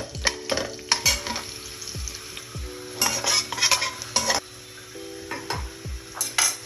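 Chopped onion sizzling in hot oil in a cooking pot, with a spoon stirring and scraping against the pot in a string of sharp strokes.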